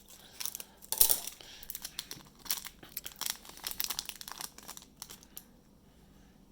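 Plastic wrapper of a trading-card pack crinkling as it is handled, a run of irregular crackles, loudest about a second in, that dies away about five seconds in.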